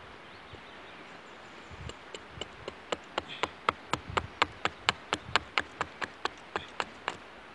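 Small Hultafors hatchet choked up at the head, making quick short strokes into a wooden spoon blank stood on end on a log to rough out its shape. It gives a run of sharp wooden knocks, about four a second, that starts softly about two seconds in, grows stronger and stops shortly before the end.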